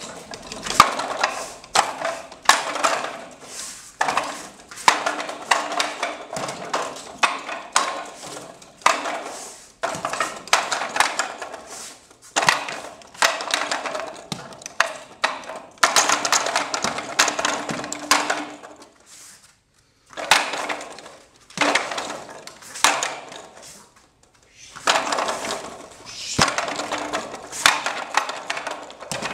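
Wing Chun wooden dummy struck in quick runs of hard wooden clacks and knocks as forearms and hands hit its wooden arms while working through the first section of the dummy form. The runs break off in two short pauses in the second half.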